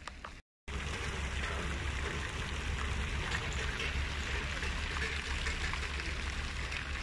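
Water spouting from a stone lion fountain and splashing into its basin: a steady splashing that starts suddenly after a short gap about half a second in.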